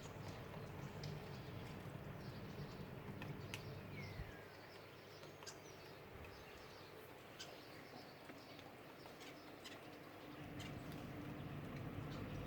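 Faint birdsong and calls: scattered short, sharp high chips and one brief falling chirp about four seconds in. Under them is a low rumble that dies away about four seconds in and comes back near the end.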